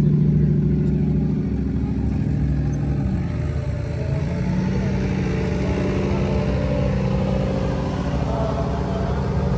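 Off-road vehicle engines running close by; the engine note dips about three seconds in, then comes back up and holds steady.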